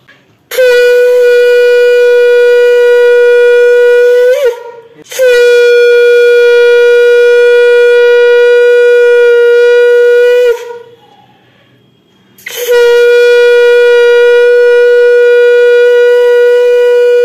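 Conch shell (shankha) blown in three long, loud, steady blasts with short breaths between; the first ends with a brief upward break in pitch, and the third runs on at the end. It is blown as the auspicious sound of a Hindu blessing rite.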